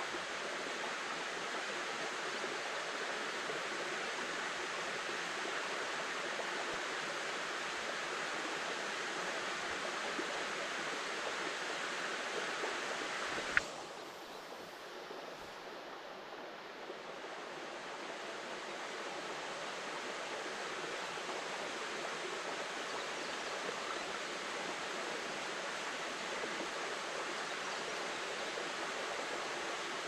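Shallow, clear upstream river babbling steadily over stones. About halfway through there is one sharp click, after which the water sound drops away and gradually comes back over a few seconds.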